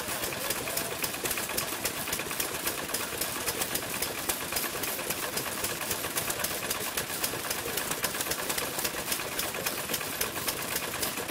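Several old Japanese kerosene stationary engines running together, a fast, uneven clatter of sharp exhaust pops and clicks, several a second.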